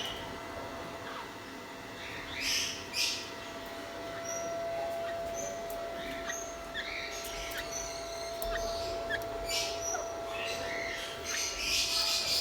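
A flock of budgerigars chirping in scattered short calls, swelling into a dense chattering chorus near the end.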